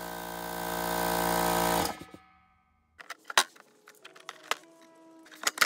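Old Harbor Freight air compressor running with a steady motor hum that gets a little louder, then shuts off abruptly about two seconds in. After a short silence come a few light clicks and knocks of handling.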